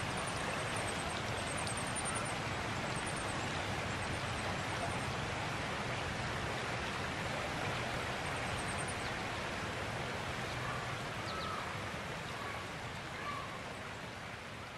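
Shallow creek running over rocks: a steady rushing and rippling of water that fades slightly near the end. Faint high twitters of small birds come twice, near the start and about nine seconds in.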